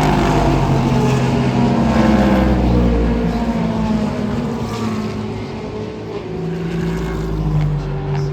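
Race cars passing at speed on the track. One engine's pitch falls over the first few seconds as it goes by, and another car's engine note comes in from about halfway.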